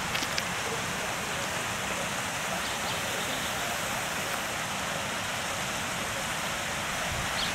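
Steady rushing of a fast-flowing mountain creek, an even wash of water noise without breaks.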